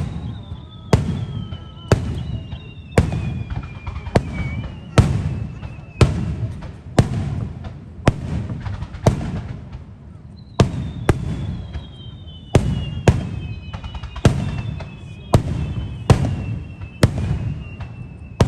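Fireworks display: aerial shells bursting with loud booms about once a second. A high whistling tone slides slowly down in pitch over several seconds near the start, and again through the second half.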